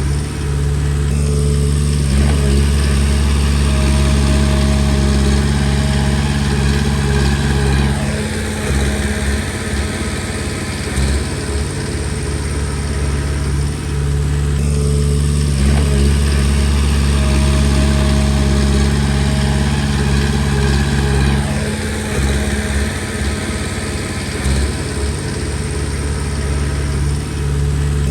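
Komatsu D20P bulldozer's diesel engine running under load. It works hard for several seconds, then eases off, and does this twice.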